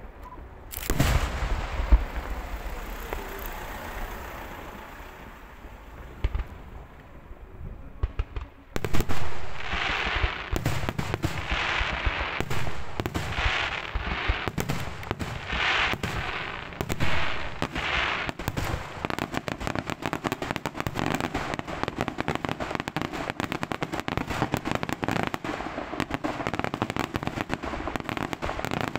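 Aerial fireworks display: a loud bang about a second in and another at about nine seconds, then a dense run of rapid crackling reports with hissing rushes roughly once a second, turning into a continuous rapid barrage of bangs for the rest.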